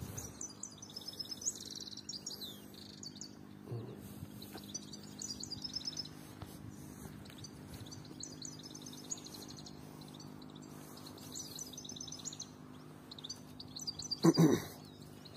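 European goldfinches twittering in repeated short bursts of quick, tinkling high notes over a faint steady low hum. A brief loud low thump comes near the end.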